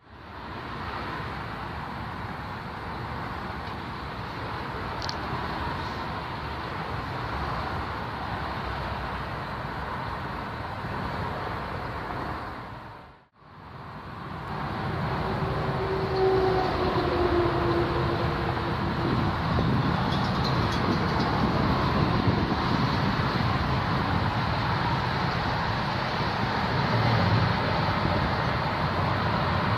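Steady aircraft engine noise, cut off briefly about 13 seconds in. Then a Bombardier Dash 8 Q400 comes in to land, its twin turboprop engines and propellers running, louder from about 16 seconds in.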